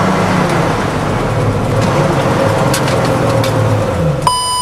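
Detroit Diesel 6-71 two-stroke diesel running under load in a fire engine's cab as the truck drives along, its pitch wavering and dipping just after four seconds. Near the end a sudden high electronic beep briefly cuts over the engine sound.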